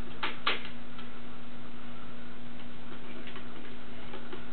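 Plastic parts of a Power Rangers R.P.M. Megazord toy clicking together as they are reconnected by hand. There are two sharp clicks about a quarter and half a second in, then fainter small clicks and handling noises, over a steady low hum.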